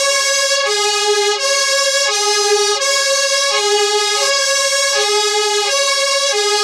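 UK fire engine siren sounding its two-tone hi-lo call: a lower and a higher note alternate evenly, each held about three-quarters of a second.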